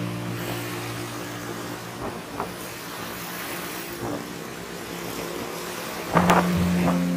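Road traffic noise over a steady low hum, getting louder about six seconds in.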